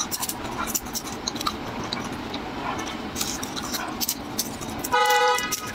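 Dry, papery garlic skins crackling and rustling as fingers peel a garlic clove, in quick irregular clicks. A brief, steady, high whine cuts in near the end and is the loudest sound.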